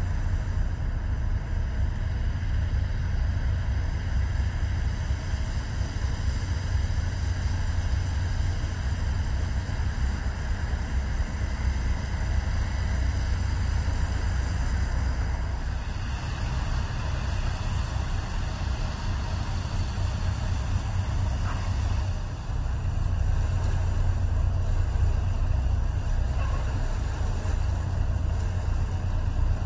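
Steady low engine rumble from a large ship passing through the harbour.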